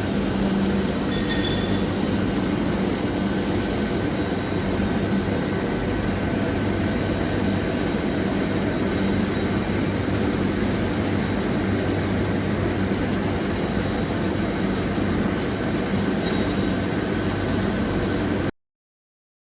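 Steel-bar induction hardening and tempering line running: a steady mechanical hum and rushing noise, with faint high-pitched tones coming and going every few seconds. It cuts off suddenly near the end.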